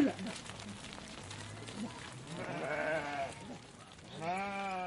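Sheep in a flock bleating: two calls, one about two and a half seconds in and one near the end, each lasting about a second.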